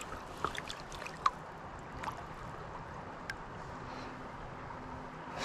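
Shallow creek water lapping and trickling around a hand held in it while a steelhead is released, with a few small drips and plinks, one about a second in.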